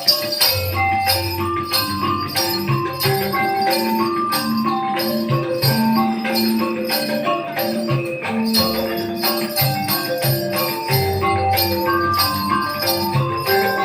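East Javanese gamelan music of the kind played for the Remo dance: a melody of short held metallophone notes over a dense, steady run of percussion strokes.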